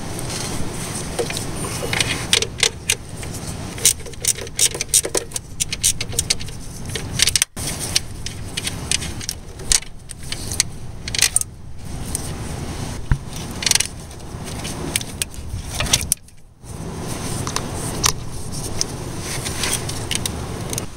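Irregular metallic clinks and rattles of hand tools and bolts being worked on in a car's engine bay, over a steady low background rumble.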